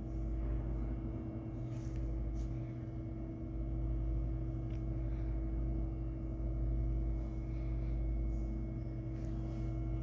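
Passenger lift running in its shaft, a steady machine hum with a deep rumble heard through the closed landing doors, with a few faint clicks.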